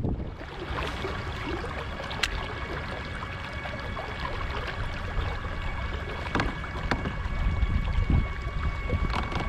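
Fishing kayak on the water: water lapping and wind on the microphone make a steady low rumble, with a faint steady high-pitched hum and a few light knocks against the hull.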